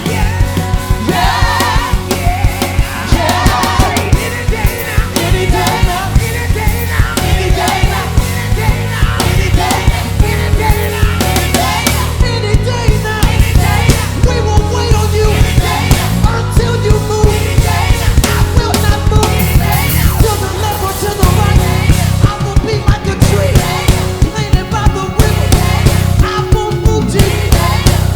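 Live worship band music: a loud, driving rock-style groove with a steady drum-kit beat and heavy bass.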